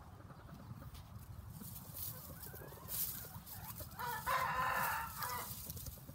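Rooster crowing once: a single short crow of just over a second, starting about four seconds in.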